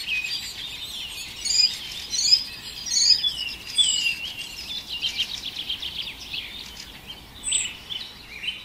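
Several small birds chirping and trilling, short high calls overlapping throughout, a few of them louder than the rest, over a faint steady hiss.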